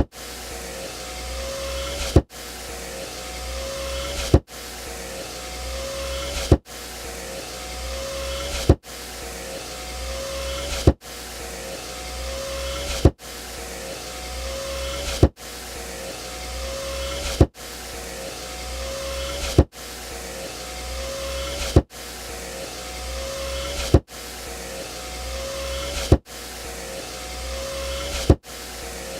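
Car power window motor whining as it drives the glass, growing louder over about two seconds and ending in a sharp thud as the glass reaches the end of its travel. The cycle repeats over and over, about every two seconds.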